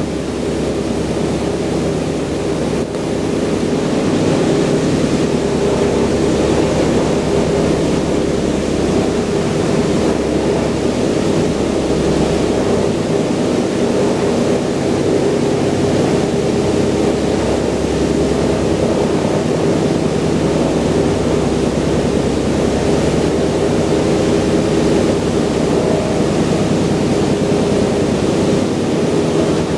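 The four Wright R-1820 Cyclone radial engines of a Boeing B-17G running, heard from inside the fuselage as a loud, steady drone. The drone grows a little louder about three to four seconds in.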